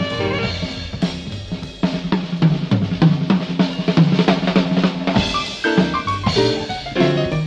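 Jazz drum kit played in a fast, busy break of snare, bass drum and cymbal strokes over a low bass line, with pitched piano notes coming back in with the drums about five seconds in.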